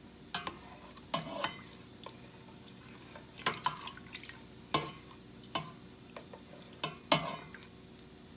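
A cooking utensil clinking and knocking against a metal pot or pan while stirring: about a dozen sharp, irregular clinks with a short ring, the loudest about seven seconds in.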